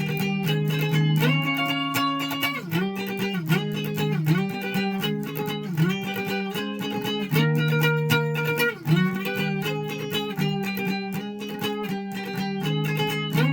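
Guitar music with sustained chords changing every second or two.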